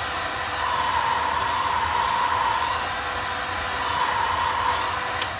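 Handheld electric heat gun running steadily, its fan blowing with a slowly wavering whine, aimed at hardened resin drips to soften them. It cuts off with a click at the very end.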